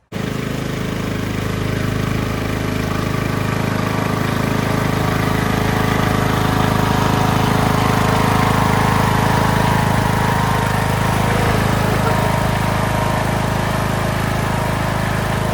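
Loud engine-driven machine running steadily, starting and stopping abruptly.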